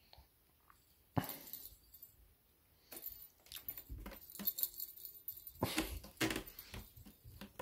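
Handling noise from play with a feather wand cat toy: irregular rustles, scrapes and clicks, with one sudden knock about a second in and a busy run of them in the second half.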